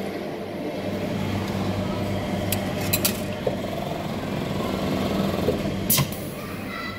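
Self-serve soft-serve ice cream machine humming steadily, with a few sharp clicks, the loudest about six seconds in, as a cone is set in its holder under the nozzle.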